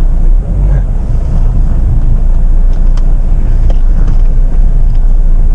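Jeep Meridian SUV crawling over a rough off-road trail, heard from inside the cabin: a steady low rumble of engine and running gear under light throttle, with a couple of faint knocks about three seconds in.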